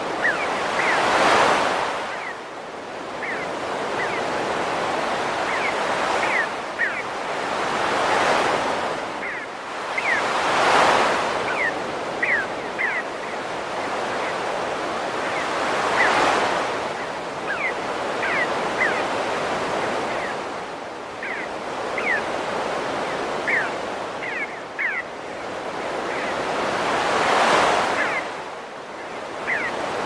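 Sea waves breaking on a shore, a surge of surf every few seconds, with short high chirping bird calls in twos and threes over it.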